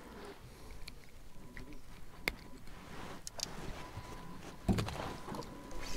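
Faint, scattered clicks and knocks of handling in a small fishing boat while a fish is on the line, with a sharper click about two seconds in and a dull thump near the end.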